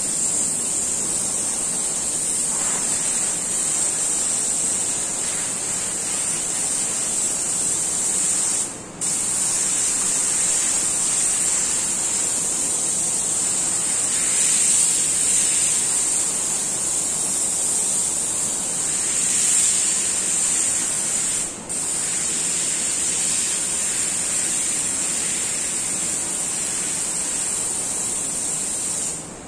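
Airbrush hissing steadily as it sprays paint, with two short breaks, about nine and twenty-two seconds in.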